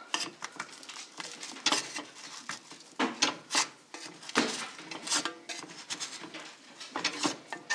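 Metal clattering and irregular knocks of a Dutch oven being handled and tipped to free a loaf of bread that is sticking inside it.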